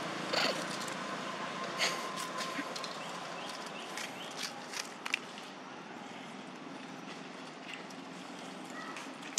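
Long-tailed macaques moving over dry leaf litter: scattered light rustles and clicks over a steady outdoor hiss, mostly in the first half.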